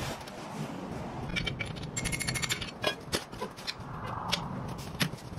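Metal parts and hand tools clinking and scraping on a truck transmission, with a quick run of ringing metallic clicks about two seconds in.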